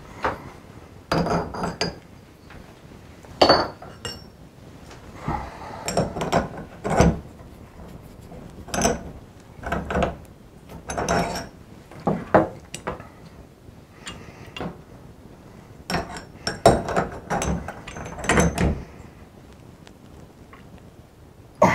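Price Pfister shower valve stem being turned by hand into its threaded fitting in the wall: short metallic clinks and scrapes, about one a second, some with a brief ring, as the hand regrips and turns the stem.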